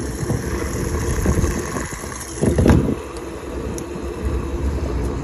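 Diesel pump nozzle dispensing fuel into a pickup's filler neck: a steady rush of flowing fuel, with a louder burst of noise about two and a half seconds in.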